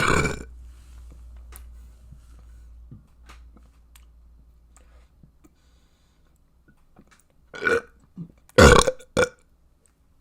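A person burping: one burp right at the start, then a quick run of three or four burps near the end, the third the loudest.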